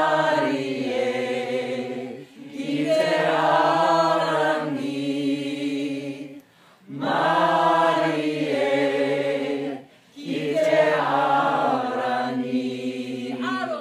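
A mixed group of men's and women's voices singing a Māori waiata unaccompanied, in te reo Māori. Four sung phrases, with a short breath between each.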